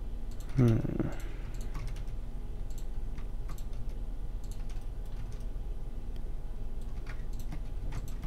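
Computer keyboard keys pressed now and then, as scattered single clicks, over a low steady hum.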